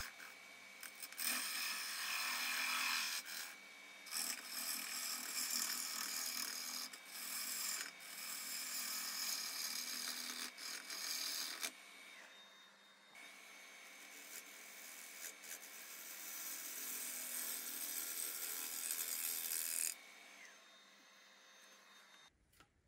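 A turning tool cutting a spinning curly maple bowl blank on a wood lathe: a hissing scrape of shavings coming off, in two long stretches with a short break near the middle. The cutting stops about 20 seconds in and the lathe winds down.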